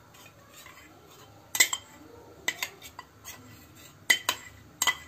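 Steel spoon clinking and scraping against a steel bowl and a cooking pan while scooping thick fresh cream out, a string of sharp clinks with the loudest about one and a half seconds in and again around four seconds in.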